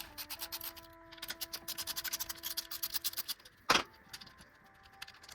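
Socket ratchet clicking rapidly while a bolt on the dirt bike's foot peg mount is worked loose, then a single sharp metal clank a little past halfway.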